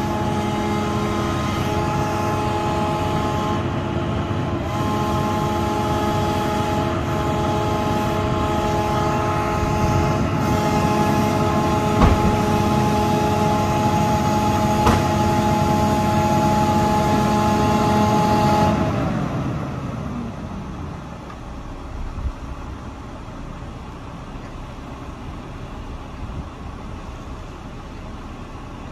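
Recycling truck's engine held at raised revs to drive its grapple crane's hydraulics, a steady whine, with sharp knocks about twelve and fifteen seconds in. About nineteen seconds in the revs drop and the truck settles to a quieter idle.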